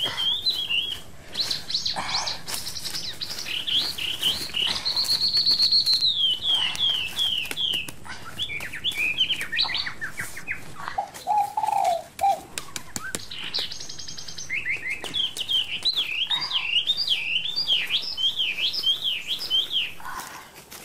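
Birds chirping and singing: series of quick whistled chirps and trills, with a lower warbling phrase about eleven seconds in.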